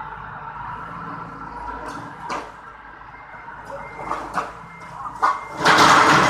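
A forklift's engine runs steadily while it handles a bundle of hollow steel tubing, with a few short knocks. Near the end there is a loud, harsh, rasping burst.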